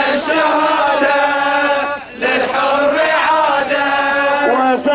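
A single male voice chanting in long, held, wavering notes, like a protest chant or lament, with a short break about two seconds in.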